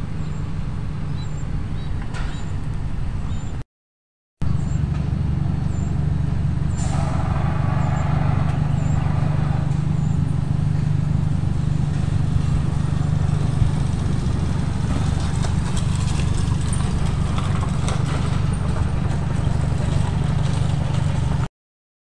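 Steady low rumble of a running vehicle engine while on the move, cut off twice by brief dropouts to silence: once about four seconds in and again near the end.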